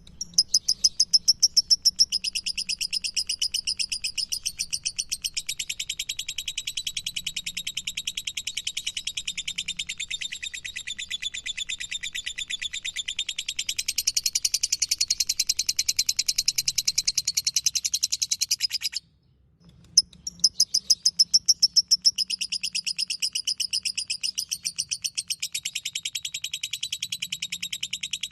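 Lovebird 'ngekek' song: a long, fast, unbroken string of high chattering notes. It breaks off for about a second about two-thirds of the way through, then starts again.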